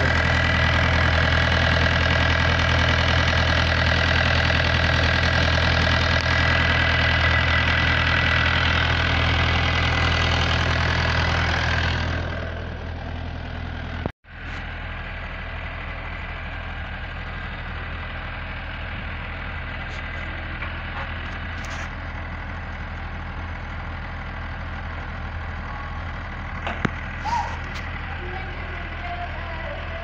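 A 24-volt diesel generator of about 16 kVA running steadily. About twelve seconds in, its sound becomes quieter and duller and breaks off for a moment, then carries on from further away.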